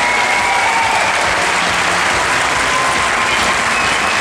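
Large audience applauding loudly and steadily, with cheers over the clapping.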